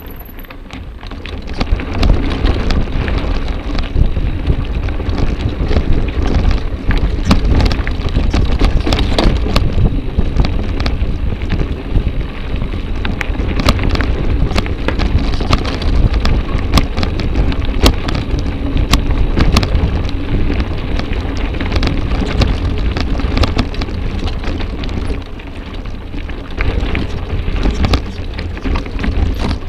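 Mountain bike ridden over a dirt forest trail: tyres crunching over the ground and a dense, rapid clatter of chain and frame rattling over bumps, over a steady low rumble. It gets louder about two seconds in.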